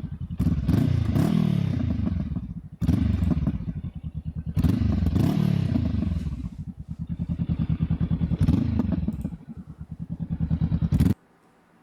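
Honda CB500F's 180-degree-crank parallel-twin engine revved several times, its exhaust note rising and falling with each blip of the throttle and dropping back to an idle between. It cuts off abruptly near the end.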